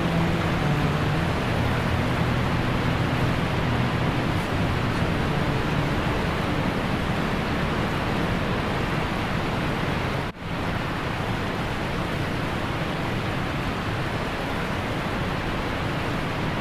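Waterfall rushing steadily, an even hiss of falling and churning water. The sound cuts out for an instant about ten seconds in and comes back slightly quieter.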